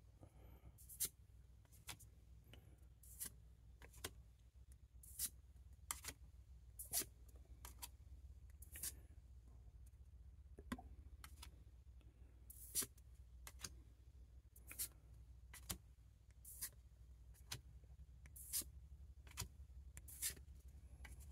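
Paper trading cards being flipped through by hand, each card slid off the stack with a short, soft swish-snap, irregularly about once a second. A faint steady low hum lies underneath.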